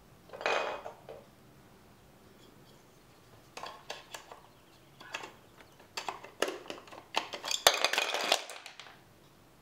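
Plastic LEGO Duplo bricks clacking and clattering as they are handled, pushed together and rummaged through. Irregular knocks, a burst about half a second in, and a dense run of clatter in the last few seconds.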